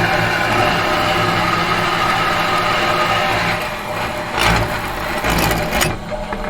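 Metal machine running with a steady multi-tone hum. About three and a half seconds in the hum thins out, and there are brief low surges about a second apart.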